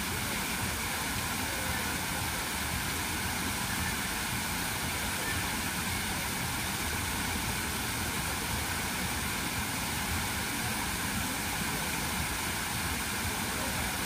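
Water cascading over the tiers of a large plaza fountain: a steady, unbroken rush of falling and splashing water.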